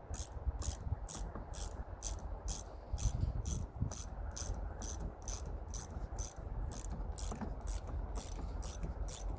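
Hand ratchet clicking steadily, about three to four clicks a second, as bolts are run into the new AC compressor.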